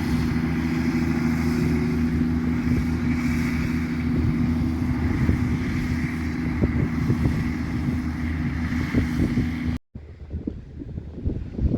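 A tractor's diesel engine running steadily, working a plough, with wind on the microphone. It cuts off abruptly near the end, leaving quieter wind noise.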